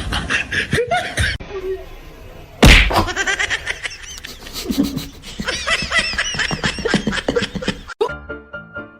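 Laughter in rapid repeated bursts, with one loud smack about two and a half seconds in; just before the end it cuts to music.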